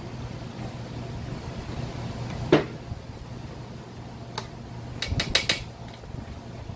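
Metal clicks and knocks of hand tools and engine parts while a brush cutter engine is taken apart to get the piston out: one sharp knock about two and a half seconds in, a single click later, and a quick cluster of clicks near the end, over a steady low hum.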